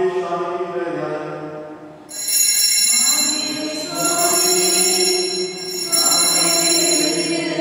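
Altar bells ringing three times, about two seconds apart, each ring bright and lingering, over singing; they mark the elevation of the host at the consecration. Chant-like singing is heard alone before the first ring.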